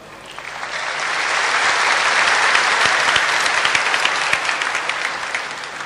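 Audience applauding. The clapping swells over the first couple of seconds and dies away near the end.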